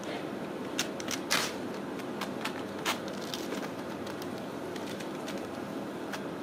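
Ragdoll kittens pawing and scrambling inside a canvas bag: scattered scratches, taps and rustles of claws on the fabric. They are bunched in the first three seconds, the loudest a little over a second in, with one more near the end.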